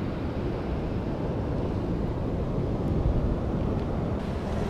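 Wind blowing across the microphone, with surf washing on the beach behind it: a steady, low noise.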